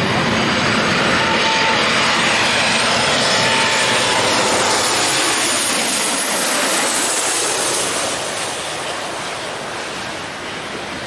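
Boeing 737 jet airliner passing low overhead on final approach: a loud, steady rush of jet engine noise with a faint high whine that falls in pitch. It fades after about eight seconds as the plane moves away toward the runway.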